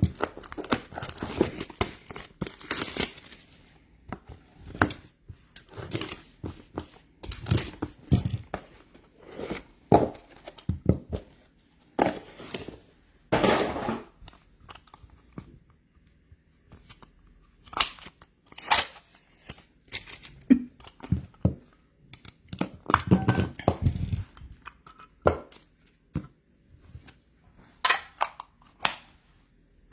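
A sealed trading-card box and its packaging being torn open and crumpled by hand: irregular tearing and crinkling with scattered light knocks.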